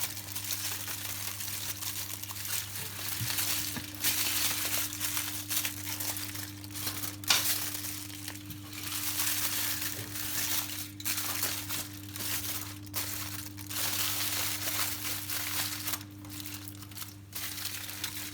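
Wrapping sheet crinkling and crumpling in irregular bursts as it is folded and pressed around fish and vegetables for oven baking.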